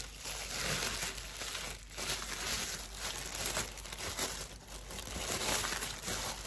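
Brown packing paper crinkling and rustling in repeated surges as it is unwrapped by hand from a small packed item.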